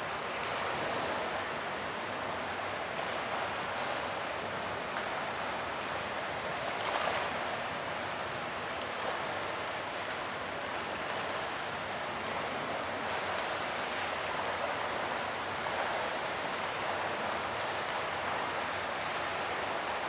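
Steady rushing and splashing of fountain water jets falling into a basin, with a brief louder surge about seven seconds in.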